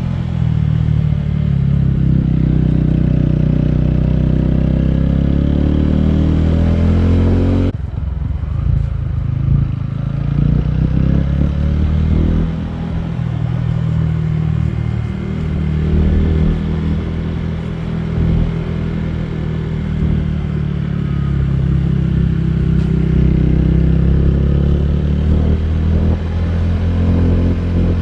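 TVS Ronin 225 motorcycle's single-cylinder engine running on the move. Its note climbs over the first seven seconds or so, drops abruptly just under eight seconds in, then rises and falls for the rest.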